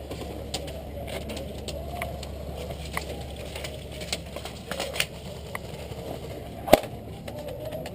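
Scattered sharp snaps and clicks of airsoft guns firing and BBs striking around the field, irregular, with one loud crack about two-thirds of the way through, over a steady low rumble.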